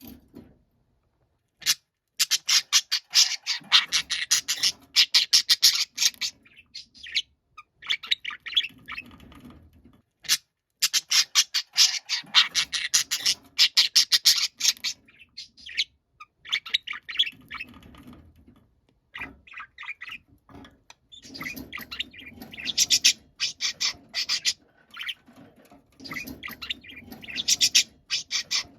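Budgerigar calling loudly in long runs of rapid, harsh chirps and squawks, several bouts with short pauses between them.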